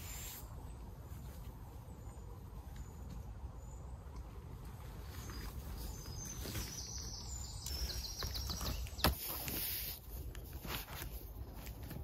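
Quiet woodland background with a faint bird chirping and a few light rustles and clicks, with one sharp knock about nine seconds in.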